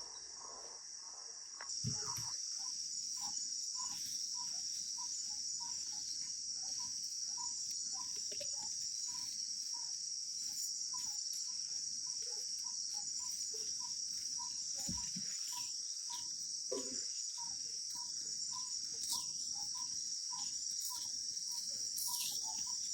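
Steady high-pitched chorus of insects, with a short note repeating about twice a second beneath it; the chorus grows louder about two seconds in.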